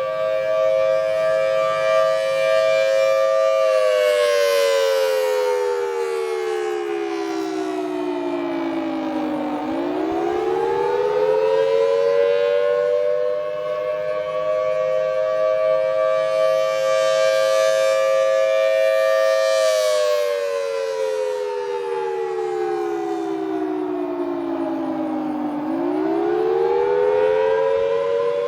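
Federal Signal Thunderbolt 1000AT storm siren sounding its attack signal, a loud two-note chord. The chord holds steady, slides down in pitch for about six seconds, then rises back and holds again, twice over. It grows louder and fainter as the rotating horn sweeps past.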